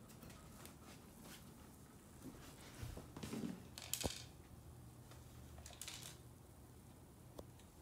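Quiet room tone with a few small clicks and taps of a plastic toy being handled, and one sharper click about four seconds in.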